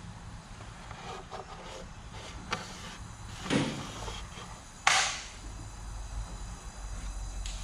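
A rag rubbing over a plastic oil pan, with two sharp knocks as the plastic pan is handled on the cart, the louder one about five seconds in. A steady low hum runs underneath.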